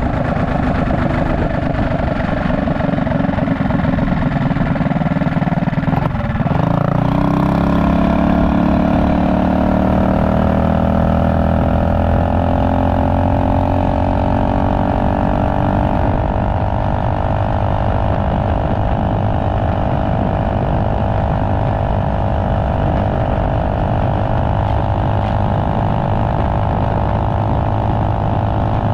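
Trailmaster Hurricane MB200X minibike's Tillotson 225cc single-cylinder engine running under way on the road. The engine note dips briefly about six seconds in, then climbs steadily for several seconds as the bike accelerates and holds a steady high cruise.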